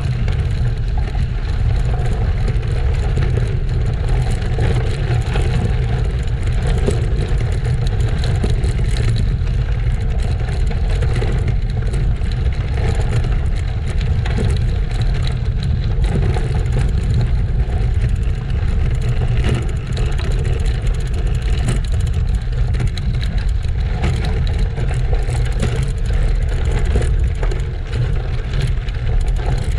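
Steady wind rumble on the microphone, mixed with the rolling noise of bicycle tyres, from a road bike being ridden on gravel.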